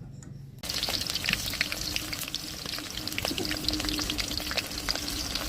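Food sizzling and crackling in hot oil in a cooking pot, starting abruptly about half a second in.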